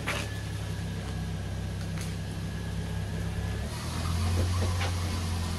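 Steady low drone of a motor vehicle's engine, with a few light clicks. The drone deepens and grows a little louder about two-thirds of the way in.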